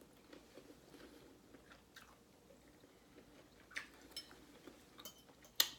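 Quiet chewing of a mouthful of soft casserole, with a few small clicks and one sharper click near the end.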